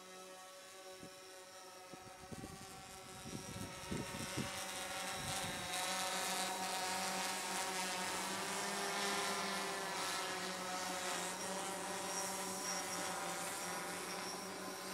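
Quadcopter drone flying: a steady, many-toned propeller hum with a hiss above it, growing louder about two seconds in, with some low rumbling for a few seconds after that.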